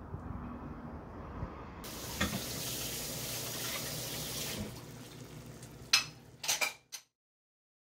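Mussels sizzling in a pan: a steady hiss starts suddenly about two seconds in and fades after a few seconds, then a few sharp clatters of the pan or utensils just before the sound cuts off.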